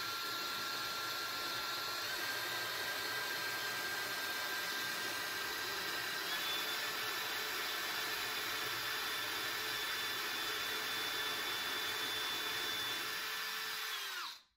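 Cordless drill running steadily with a diamond bit grinding into a lava rock held under water. Its motor whine shifts up in pitch about two seconds in and winds down just before the end.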